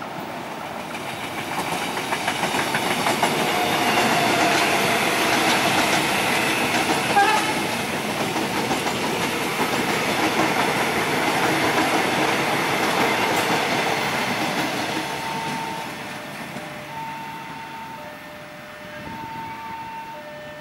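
KRL Commuter Line electric multiple unit passing at speed close by: a rush of steel wheels on rail with clickety-clack over the joints, building up and then fading. From about fifteen seconds in, a level-crossing warning alarm sounds, two tones alternating evenly.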